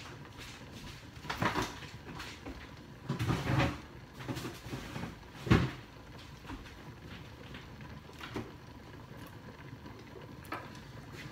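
A few scattered knocks and clunks of kitchen handling, the loudest about five and a half seconds in, over a steady low background hum.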